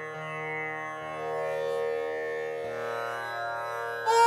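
Instrumental background music in an Indian classical style: a sustained drone with low notes changing every second or so, swelling louder near the end as a melody comes in.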